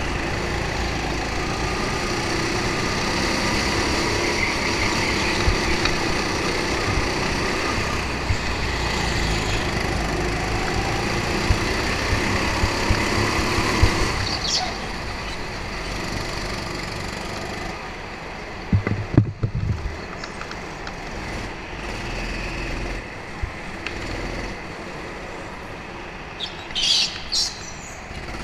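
Indoor go-kart running at racing speed, heard from a camera mounted on the kart, then slowing and quieting as it comes into the pit lane and rolls to a stop. A few knocks come about two-thirds of the way through, and a few short high squeaks come near the end.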